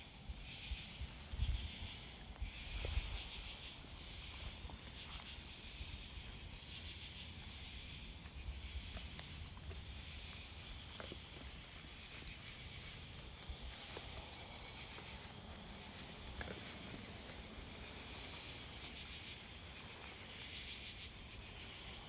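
Insects chirping in short pulsed bursts that repeat about once a second, over a low outdoor rumble, with a couple of low bumps in the first few seconds.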